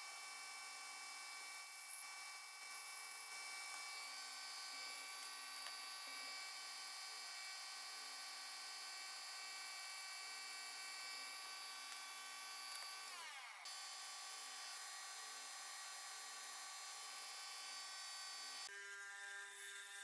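Metal lathe running with its chuck spinning while a twist drill bores into brass bar stock: a steady motor whine of several tones. About 13 seconds in the whine winds down in pitch and a different steady hum follows, and near the end the sound changes again to another steady machine hum.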